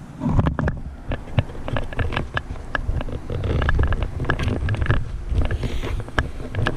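Wind rumbling on the microphone, with scattered sharp clicks and knocks.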